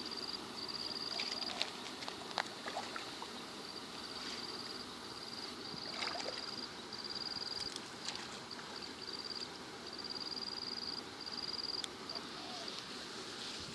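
Water trickling and sloshing, with a few sharp splashes or knocks. A high, steady trill keeps breaking off and starting again.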